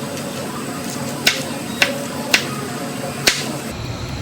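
Kitchen knife cutting through an onion and striking a cutting board: four sharp knocks at uneven intervals, a half-second to a second apart.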